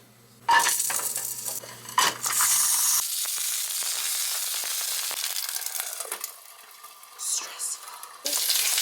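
Pork buns (shengjian bao) sizzling as they pan-fry in hot oil. There are a few sharp knocks in the first two seconds, and the sizzle swells loud again near the end.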